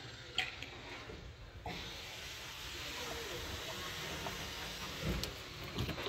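Light handling knocks of the washing machine's rubber drain hoses and plastic parts, a few faint taps over a steady hiss.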